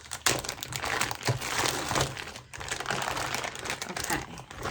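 Packaging crinkling and rustling with many small crackles as items are unwrapped from a box.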